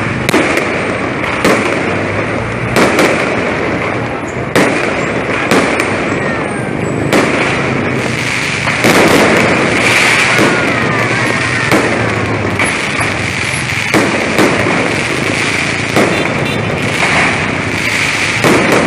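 Fireworks display: rockets and aerial shells bursting with sharp bangs every second or two, over a continuous crackling hiss from the sparks, with a few faint falling whistles.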